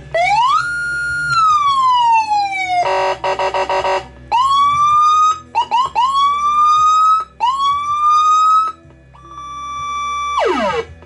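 Electronic 8-button siren module sounding Whelen-style siren tones through its speaker. It plays a rise-hold-fall wail, then a short fast warble, then several rising whoops in a row. Near the end a steady tone drops off sharply in pitch.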